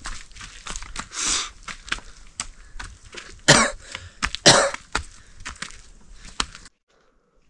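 Heavy, loud breathing and coughing from a man straining under a log on his shoulder, with a few strong huffs in the middle, over footsteps clicking on a stony path. The sound cuts off suddenly near the end.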